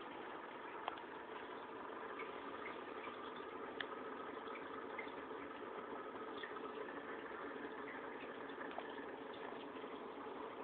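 Steady bubbling and trickling of aquarium water from a filter, with small pops now and then.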